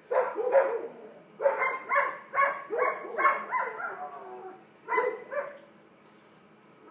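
A dog barking in quick runs: two barks, then about six in a row, then two more about five seconds in.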